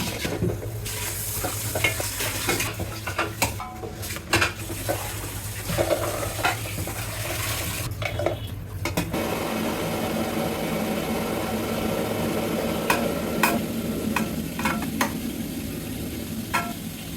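Food sizzling in a hot pan while being stirred, with the spatula scraping and knocking against the pan several times.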